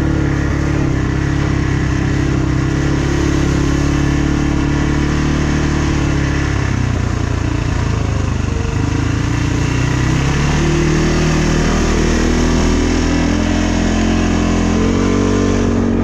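ATV engine running under way on a trail, steady at first, easing off around the middle and then picking up speed again, higher in pitch, over the last several seconds.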